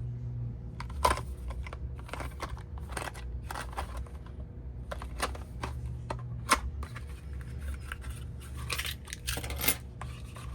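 Album packaging being handled and opened by hand: scattered small clicks, taps and rustles, with a steady low hum underneath.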